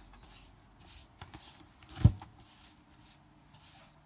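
A series of short scratchy rubbing strokes as loose glass glitter is cleaned off a craft piece, with one sharp knock about two seconds in.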